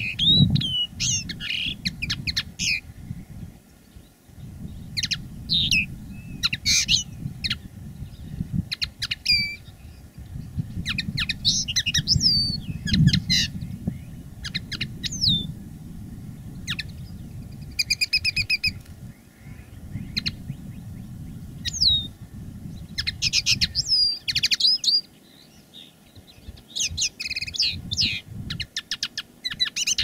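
Common linnet singing: phrases of fast twittering chirps, rising and falling whistled notes and buzzy trills, each lasting a few seconds with short pauses between them.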